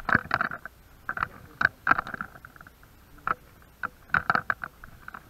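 Footsteps crunching and scraping over rubble on a debris-strewn floor, uneven strokes at walking pace.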